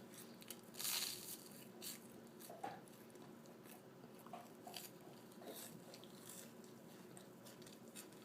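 A person biting into crunchy toast about a second in, then chewing it more quietly in short crunches.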